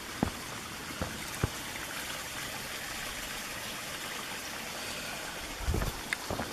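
A small rocky woodland stream trickling steadily, with a few soft thumps, the last of them in a short cluster near the end.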